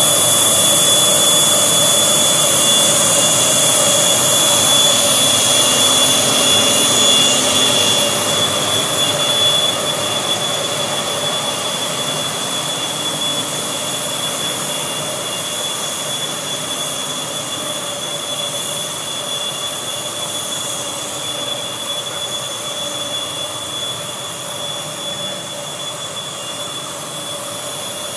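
Gantry CNC plasma cutting machine cutting a steel plate: a steady hiss with a high, even whine, growing gradually fainter over the second half.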